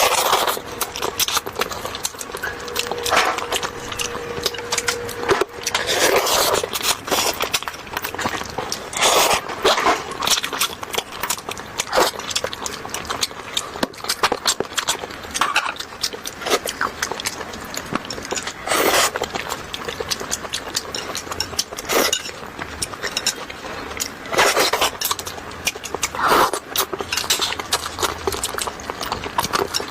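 Close-miked eating sounds of fish being chewed: a constant run of wet mouth clicks and lip smacks, with a louder bite or smack every few seconds.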